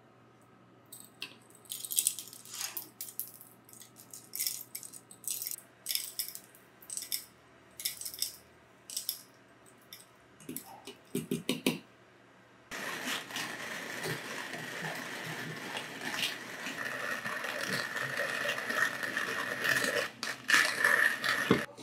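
Coffee beans poured in small batches into the brass hopper of a wooden-box hand-cranked coffee mill, rattling and clicking against the metal, with a few dull knocks about eleven seconds in. From about thirteen seconds in, the crank is turned and the beans crunch steadily through the grinder, stopping suddenly just before the end.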